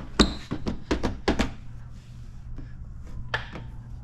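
A quick run of sharp clicks and knocks in the first second and a half, then a few fainter ones: handling noise from working protection film and tools on a car fender.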